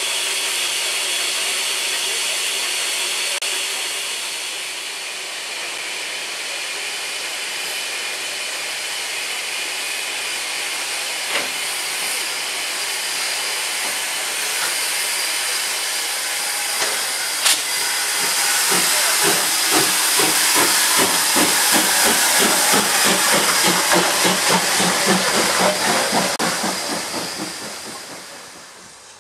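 Steam locomotive with a steady hiss of steam. About eighteen seconds in come rapid, even exhaust beats, roughly three a second, as it works a train away; they fade out near the end. A couple of sharp knocks are heard midway.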